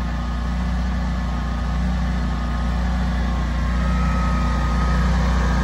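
Kohler home standby generator engine running at a steady speed, a constant low hum while the transfer switch waits out its delay before switching back to utility power. A faint high whine joins about four seconds in.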